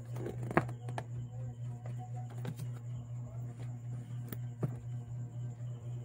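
Hands handling a boxed phone with its plastic wrap and a paper shopping bag: scattered taps, clicks and rustles, the sharpest about half a second in. A steady low hum runs underneath.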